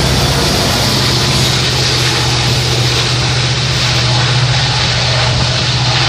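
Union Pacific diesel locomotive passing close by: a steady low engine hum under a constant broad noise of the moving train.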